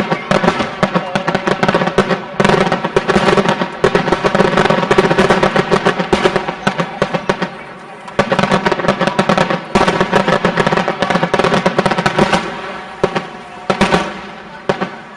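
Fireworks going off in a dense, rapid barrage of cracks and bangs, like a finale. The barrage thins out and stops shortly before the end.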